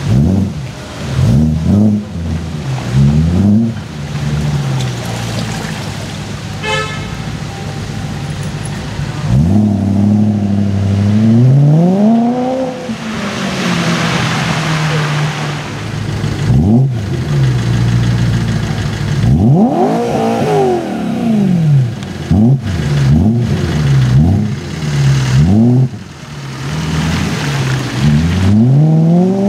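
BMW M3 engine being revved over and over, with quick blips and several longer revs whose pitch climbs and falls back. A car horn toots briefly about 7 seconds in.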